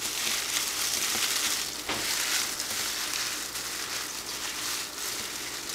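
Plastic wrap and thin plastic gloves crinkling steadily as the wrap is rolled around a wet, dye-soaked cotton yarn skein, with a sharper crackle about two seconds in.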